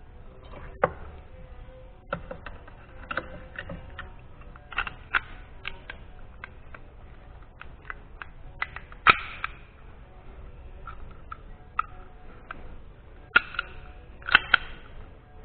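Small metal clicks and snaps of a P29 blank pistol's steel slide and parts being handled and fitted onto the frame, a scatter of light ticks with sharper clicks about a second in, about nine seconds in, and several close together near the end.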